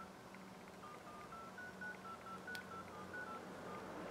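iPhone 7 Plus dial pad playing touch-tone (DTMF) beeps as numbers are tapped in, about a dozen short beeps of slightly different pitch at an uneven pace. There is one sharp click about two and a half seconds in.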